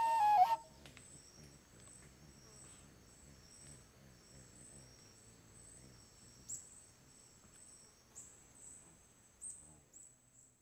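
A long wooden flute holds one note, which stops about half a second in. Then insects chirp steadily at a high pitch, with a few sharp high chirps near the end.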